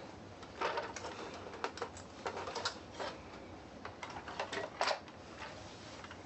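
Irregular plastic clicks, taps and scrapes from the Gotway MTen3 electric unicycle's plastic shell halves being handled after being pried apart, with a sharper click about five seconds in.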